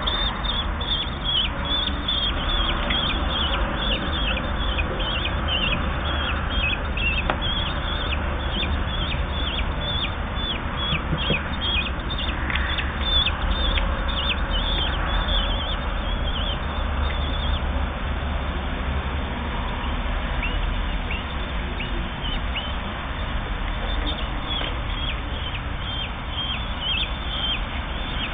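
Common kestrel chicks, 8 to 10 days old, begging at feeding with rapid, repeated short high calls that fall in pitch; the calls come thick and fast at first and thin out about two-thirds of the way through. A steady low rumble runs beneath.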